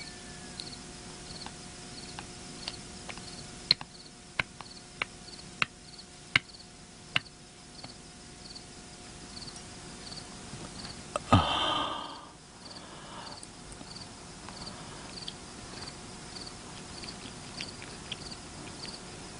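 Crickets chirping steadily, a high chirp about twice a second, with a run of sharp clicks or knocks a few seconds in and one louder, brief noisy burst about eleven seconds in.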